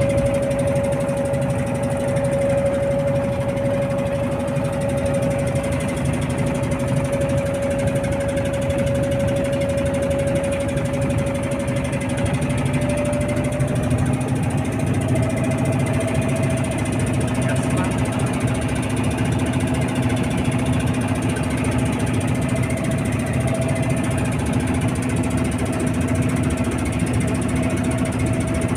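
Boat engine running steadily at an even pace, its pitch stepping up a little about halfway through.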